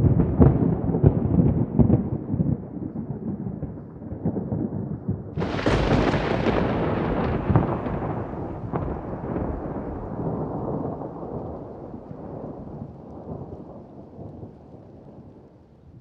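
Thunder: a rumble with crackles starts suddenly at the beginning, then a sharp, close crack about five and a half seconds in, followed by a long rumble that slowly fades away.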